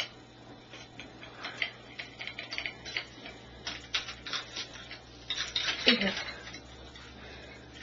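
Irregular light clicks and clinks of utensils being handled, with a louder, denser clattering stretch about five and a half to six and a half seconds in.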